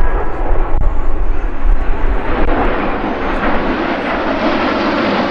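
Jet noise from the Breitling Jet Team's Aero L-39 Albatros jets flying by. It swells about two seconds in and then holds loud and steady.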